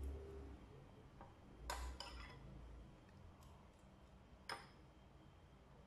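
Near silence with a few faint, sharp clicks of a metal spoon against a ceramic bowl during eating, the two clearest a little under two seconds in and about four and a half seconds in.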